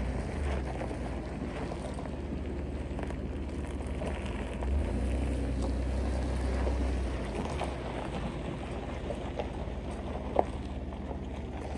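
Pickup truck's engine running as the truck is driven slowly and manoeuvred into a parking spot, a steady low rumble mixed with wind on the microphone. A single short knock near the end.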